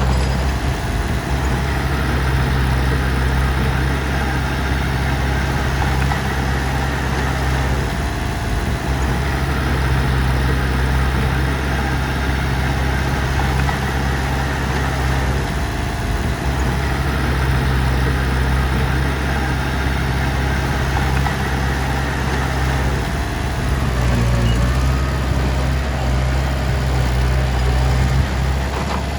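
Heavy machinery diesel engine running steadily with a deep, even hum, its pitch shifting slightly a couple of times.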